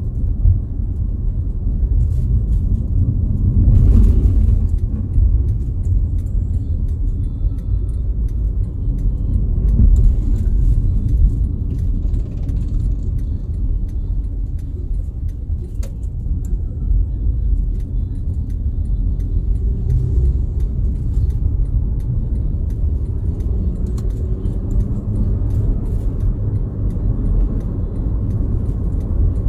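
Steady low rumble of a vehicle on the move: engine and tyre noise while driving along a paved road.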